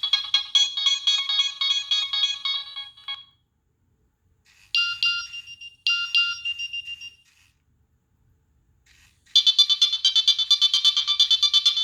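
Built-in ringtones of a Nokia 3588i mobile phone playing through its small speaker. One melody of quick notes ends about three seconds in. After a pause comes a short tune in two phrases. After another pause, a louder, fast-paced ringtone starts near the end.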